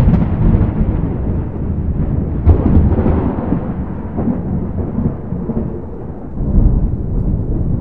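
Thunder: a low rolling rumble with a sharp crack about two and a half seconds in and another loud clap near the end.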